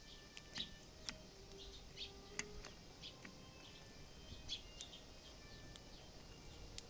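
Eurasian tree sparrows giving short chirps, with scattered sharp clicks every second or so.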